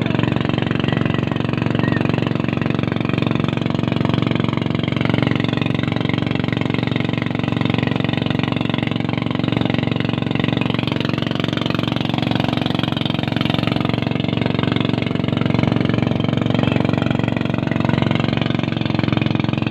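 Boat engine running steadily at a constant pace, a loud, even drone.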